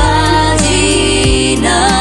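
Background music: a song with sustained melody notes over a steady bass.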